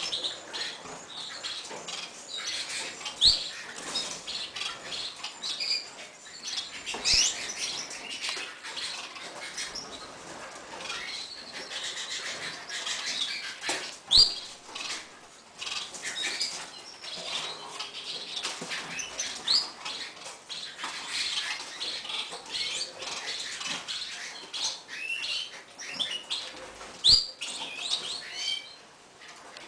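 Gloster canaries at the nest, hen and nestlings, giving a steady stream of short, high chirps and cheeps while she feeds the chicks. A few sharp knocks are spread through the stretch.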